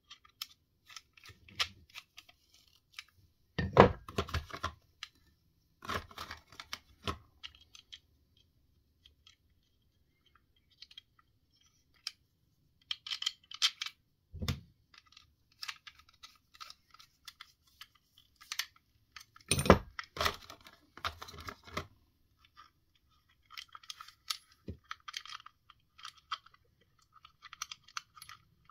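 Irregular clicks, knocks and scrapes of small hard parts and tools being handled at close range, with a few louder knocks about 4, 14 and 20 seconds in and quiet stretches between.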